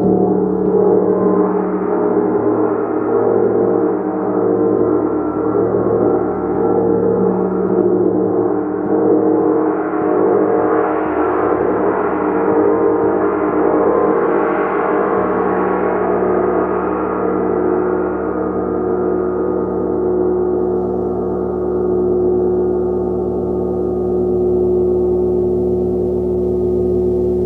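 A gong played continuously, a sustained wash of many overlapping tones with a slow pulsing beat. Its bright upper shimmer swells in the middle, then eases off while the lower tones ring on.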